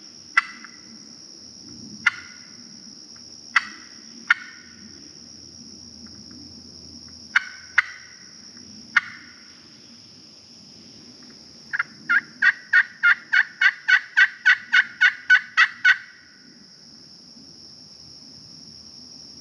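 Wild turkey calling: a few separate sharp clucks spread over the first nine seconds, then a fast run of about sixteen yelps, about four a second, ending about three seconds before the end. Insects drone steadily throughout.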